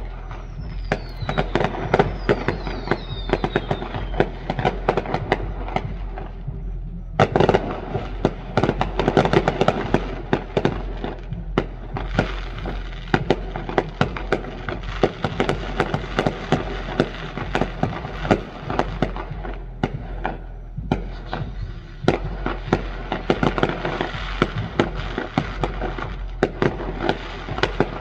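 Fireworks grand finale: a rapid, almost continuous string of bangs and crackling. A few falling whistles sound in the first few seconds, and there is a heavy bang about seven seconds in.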